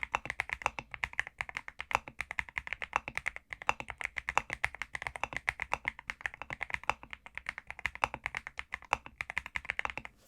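Rapid typing on a Zuoya GMK67 mechanical keyboard with Leobog Graywood V3 linear switches and MDA profile keycaps: a quick, steady run of keystroke clacks that stops just before the end.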